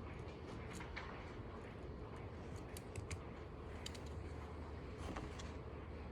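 Library room tone: a steady low hum of ventilation with scattered faint clicks and taps, a small cluster of them around the middle.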